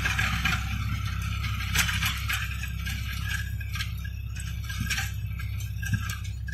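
New Holland 3600-2 tractor's diesel engine running steadily under load, pulling a rotavator through hard, dry soil, with scattered rattles and clinks from the rotavator and clods.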